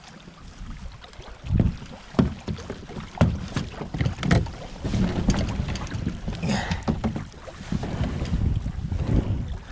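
Kayak being paddled on a lake: irregular paddle splashes and knocks against the hull, with wind buffeting the microphone.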